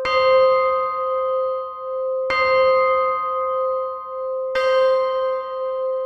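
Big Ben hour bell striking three times, about two and a quarter seconds apart. Each stroke rings on with a slowly wavering hum that is still sounding when the next one lands.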